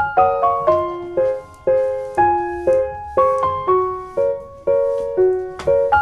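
Background piano music: a melody of single notes struck two to three a second, each one fading away before the next.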